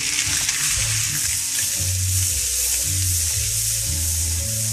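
Chickpeas sizzling in hot olive oil and bacon fat in a frying pan as the pan is tossed to sauté them: a steady, dense sizzle.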